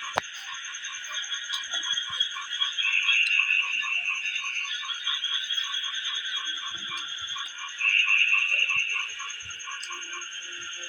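A steady chorus of calling frogs: a pulsing call repeating about four times a second over a continuous high trill, with one sharp click just after the start.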